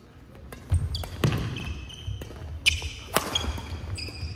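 Badminton doubles rally: sharp racket strikes on the shuttlecock, about a second in and twice more near the end, with court shoes squeaking on the wooden floor.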